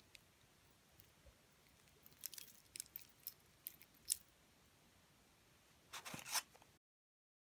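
Light, sharp clicks of a multi-jointed hard-plastic fishing lure being flexed and turned in the hand, its body segments and treble hooks clicking, scattered from about two seconds in. Near the end, a short burst of crinkling from a clear plastic packaging sleeve being handled.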